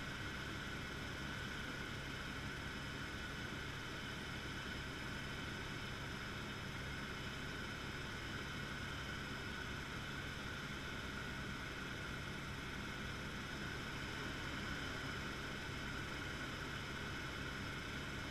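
Helicopter in flight heard from inside the cabin: a steady drone of engine and rotor with a constant whine above it.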